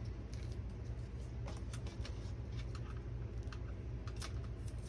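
Scattered light clicks and rustles of small model parts and cables being handled by hand, over a steady low hum.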